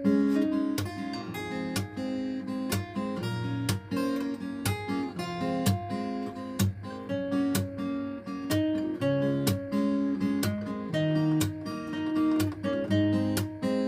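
Acoustic guitar playing an instrumental passage, picked melody notes over strummed chords.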